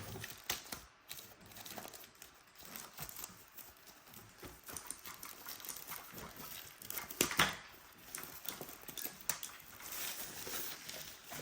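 Packaging being handled as a keyboard wrist rest is unpacked: scattered rustling and light knocks, with a sharper pair of knocks about seven seconds in.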